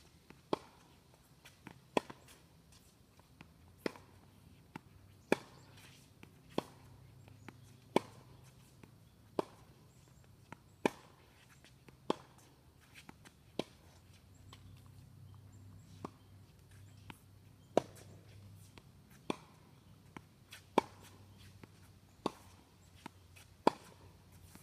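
Tennis balls struck by racquets in a rally: a sharp pop about every one and a half seconds, the hits alternating louder and softer.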